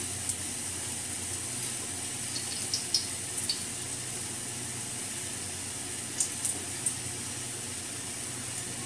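Steady sizzling hiss of a little cooking oil heating in a stainless steel kadai on a gas stove, with a few light clicks scattered through.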